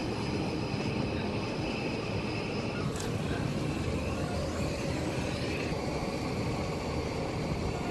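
Steady low rumble of outdoor city background noise, with a faint click about three seconds in.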